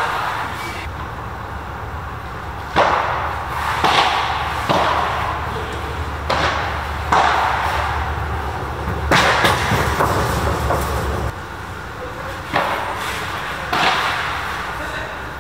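Padel rally: rackets striking the ball and the ball bouncing off the sand-filled artificial turf and the glass walls. It comes as a string of sharp pops about a second apart, some in quick clusters, each echoing under the court's canopy roof.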